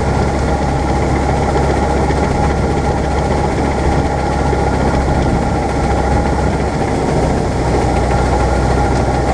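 Bizon Z040 combine harvester's diesel engine running steadily at working speed, heard close up from the machine, while its unloading auger runs, pouring grain into a trailer.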